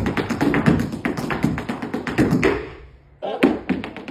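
Hard-soled dance shoes beating rapid footwork on a concrete floor, a quick run of sharp taps with a short break about three seconds in.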